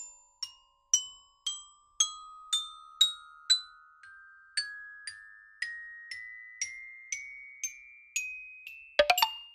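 Background music of bell-like struck notes, about two a second, each ringing out and fading, the melody climbing slowly in pitch. A quick flurry of louder notes comes near the end.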